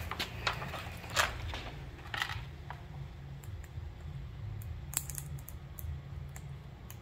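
Window tint film crinkling and clicking in a few sharp bursts as its corner is worked by hand to split the film from its liner, the loudest about a second in, over a low steady hum.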